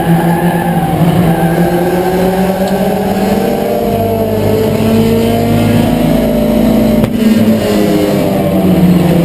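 Four-cylinder engine of a Ford Escort race car, heard from inside the cockpit, running hard under racing load. Its pitch climbs slowly for several seconds, breaks off briefly about seven seconds in as the driver lifts, then drops and climbs again.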